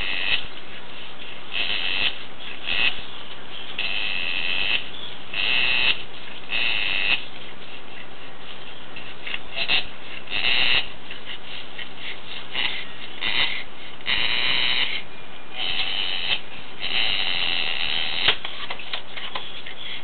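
Heavily pregnant Boer goat doe making short, high noises over and over, about a dozen at irregular intervals, over a steady hiss. The noises are a sign of her discomfort late in pregnancy.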